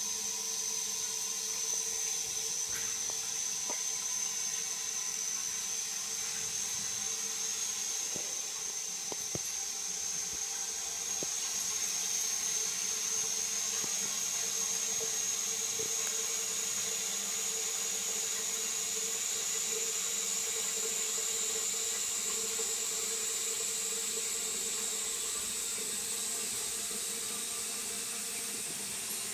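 Dauntless high-level plastic toilet cistern refilling after a flush: water hisses steadily through the inlet valve, with a high whistle that rises slowly in pitch.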